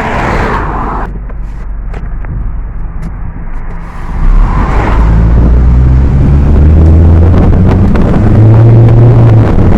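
A motor vehicle engine running close by, with a low steady drone that gets much louder about four seconds in.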